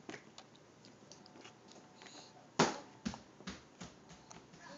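A baby's hand patting and slapping a plastic high-chair tray: one loud knock a little past halfway, then several lighter taps about two a second.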